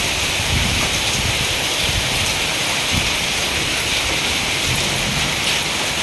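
Heavy rain pouring down during a hailstorm, a dense steady hiss.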